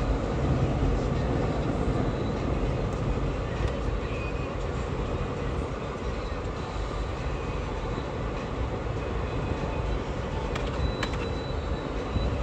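Steady road noise inside a moving car's cabin.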